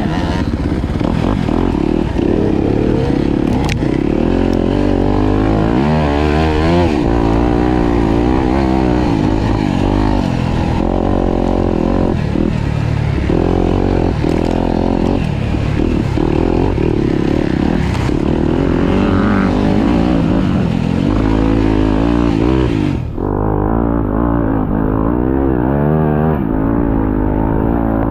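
Off-road motorcycle engine under load, revving up and down continuously as the rider rides the trail. About three quarters of the way through, the sound abruptly turns duller.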